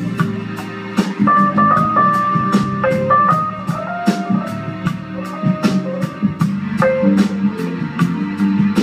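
Live jazz band playing: a lead line of held melody notes over chords and bass, with the drums keeping a steady beat, about three strokes a second.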